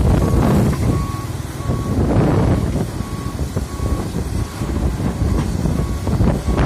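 Diesel engine of heavy construction machinery running with a rumble and scattered knocks, over a reversing or travel alarm giving repeated short beeps less than a second apart.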